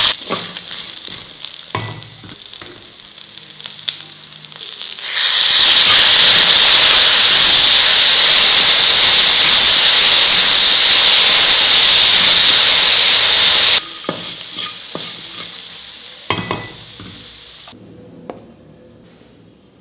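Peanuts, green chillies, shallots and garlic frying in oil in a brass kadai, with a spatula scraping and stirring through them. About five seconds in, a loud, steady sizzle starts as fresh mint leaves hit the hot oil and give off steam. It cuts off abruptly near the end, leaving a few light clinks.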